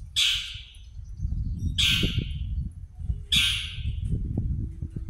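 An animal's harsh, high call, repeated three times about a second and a half apart, over a steady low rumble.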